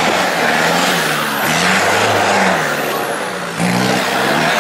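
Off-road 4x4 truck's engine revving hard, its pitch rising and falling several times as the driver works the throttle through rough ground.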